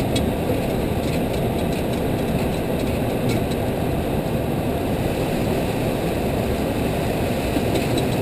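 Steady cockpit noise of an airliner in flight through heavy rain, a constant rush of air and engines, with faint scattered ticks over it.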